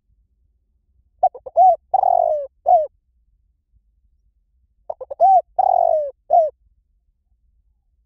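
Spotted dove cooing: two phrases about three and a half seconds apart, each a few short coos with a longer coo that falls in pitch.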